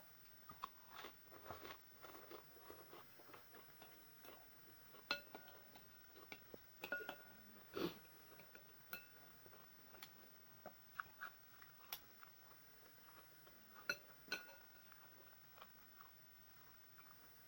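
Quiet chewing of a bowl of noodle soup, with scattered short clicks and a few brief ringing clinks of a utensil against the bowl.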